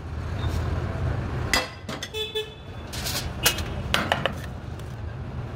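Aluminium tajine pots knocking and clinking against foil trays and metal as baked macaroni is turned out of them. There are several sharp knocks, over a steady low rumble.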